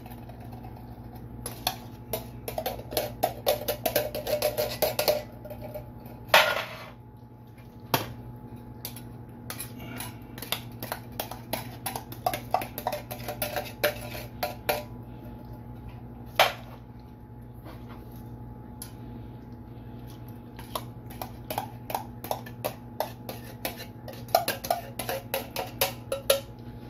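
A metal spoon scraping and clinking inside tin cans of baked beans as they are scooped out into a metal loaf pan, in runs of quick clicks and scrapes with short pauses between. A steady low hum runs underneath.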